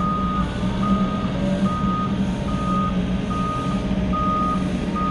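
Compact excavator's warning alarm beeping at a steady pace, about one beep every 0.8 seconds, over the steady hum of its diesel engine.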